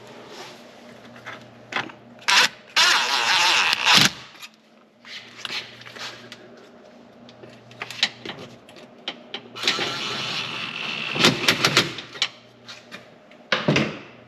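A power driver runs twice, in a short burst and then a longer one, tightening the hose clamp at each end. Clicks and knocks of tool handling come in between.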